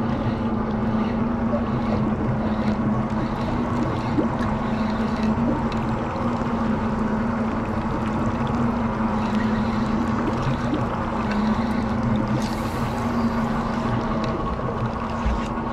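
A boat's engine running steadily with a constant low hum.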